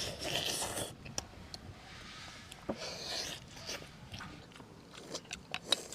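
People eating soy-braised small fish at close range: chewing and biting sounds with scattered light clicks.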